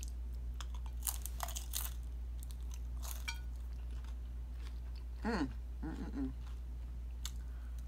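Biting into and chewing loaded tortilla-chip nachos: sharp crisp crunches in the first few seconds, then quieter chewing, with two short vocal sounds about five and six seconds in.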